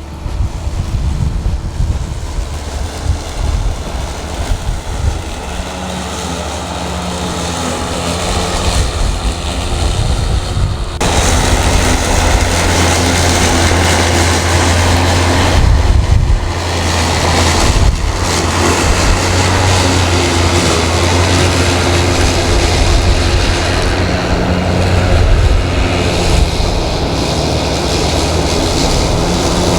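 Battery-powered electric lawn mower with a 20-inch deck running steadily as it cuts high grass: a motor-and-blade hum whose tones shift and drop out now and then. Wind buffets the microphone throughout. About eleven seconds in, the sound gets suddenly louder and fuller.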